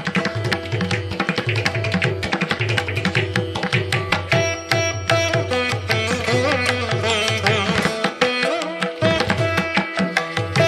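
Instrumental background music in an Indian classical style, with quick, steady drum strokes under a melody line that bends in pitch.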